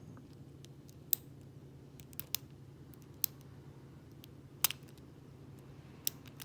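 Master Lock No. 570 padlock being picked: about six sharp metallic clicks at irregular intervals as the pick works the pin stacks under light tension.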